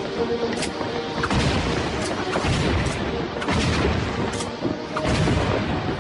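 Cartoon sound effects: a series of heavy booming rumbles, about four surges roughly a second apart, over background music.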